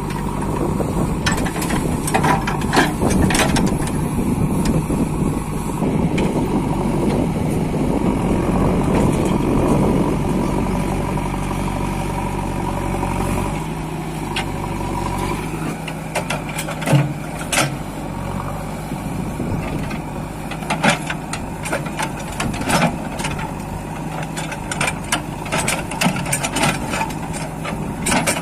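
JCB 3DX backhoe loader's diesel engine running steadily as the machine works, with sharp metallic clanks from the digging gear, more often in the second half. The engine settles to a lower, quieter note about halfway through.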